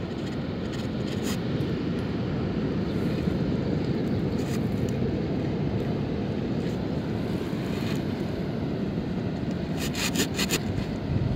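Wind buffeting a phone's microphone on a beach: a steady low rumbling noise. There are a few faint clicks, and a quick run of clicks near the end.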